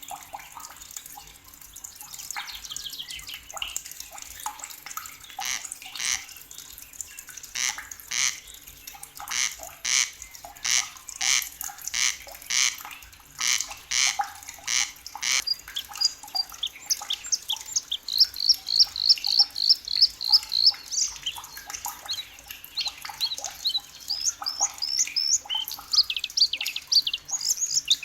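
Forest birds singing: one bird repeats a harsh call over and over, speeding up, then a fast series of short high notes about two-thirds of the way in, with scattered rising chirps near the end.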